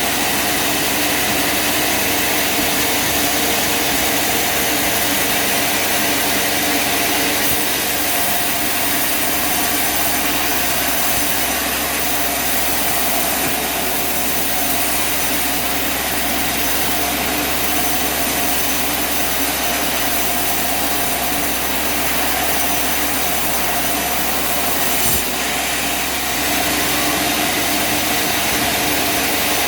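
An engine running steadily at constant speed, with one short knock about 25 seconds in.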